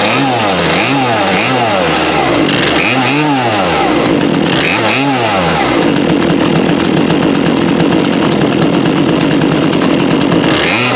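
2013 Poulan Pro 42cc two-stroke chainsaw running, its throttle blipped in quick revs. About six seconds in it is held at high revs for about four seconds, then it drops back to blipping.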